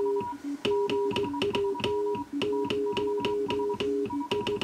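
Morse code sent by hand on a straight key and heard as an on-off tone from a receiver monitoring the transmitter and QRP linear amplifier, in short dits and longer dahs. A sharp click marks many of the key-downs and key-ups.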